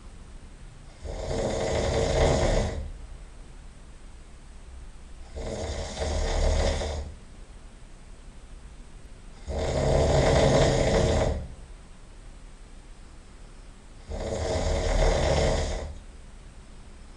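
A person snoring loudly in sleep: four long snores, each about one and a half to two seconds, coming roughly every four seconds with quieter breathing gaps between.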